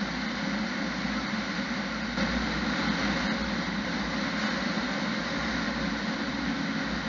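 Steady engine and road noise heard from inside a moving vehicle's cab, a little louder from about two seconds in.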